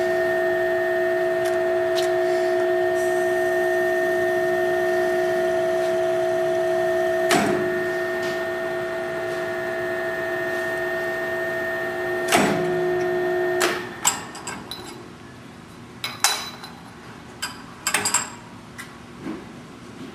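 Drill tap machine with a three-tap head tapping 10-32 holes at about 250 RPM: a steady motor hum that starts with a click, clicks again about seven seconds in, where the spindle reverses automatically at the set depth, clicks once more about twelve seconds in, and stops about fourteen seconds in. Scattered clicks and knocks follow.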